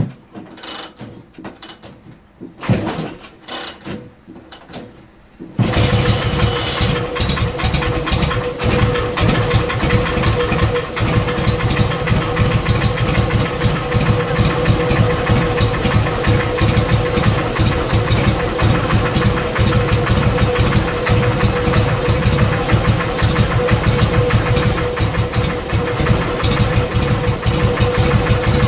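Harley-Davidson Panhead V-twin kicked over several times, catching about five and a half seconds in and then idling steadily with a bad knock in the front cylinder. The owner first took the knock for an intake leak but has ruled that out.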